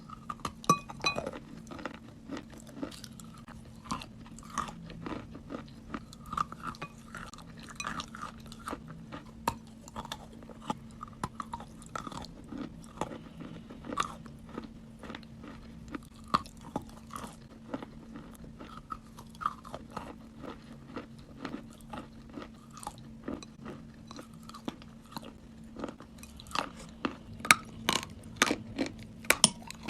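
Close-miked chewing of crunchy food: a long run of sharp crunches and bites, coming thicker and louder near the end, over a faint steady hum.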